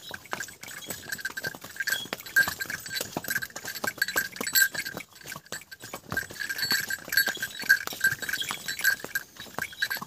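A bell on a riding horse ringing over and over in a steady rhythm with the horse's stride, dropping away for a moment about halfway through, mixed with the clop of hooves on a stone trail.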